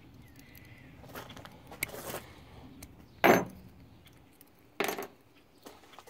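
Keys and a small metal keychain pocket knife being handled, giving a few light clicks and two sharper metallic clinks, the loudest about three seconds in with a brief high ring.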